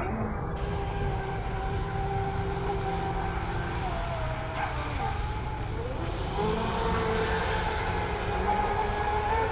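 The twin brushless electric motors of an RC racing catamaran whine at speed over a low rushing noise. Their pitch dips and wavers about halfway through, then climbs and holds higher with the throttle.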